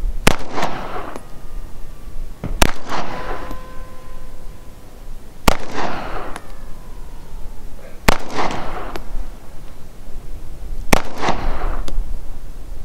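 Five 9mm shots from a SAR USA B6 pistol, fired slowly at about two and a half to three second intervals, each shot followed by a short echo.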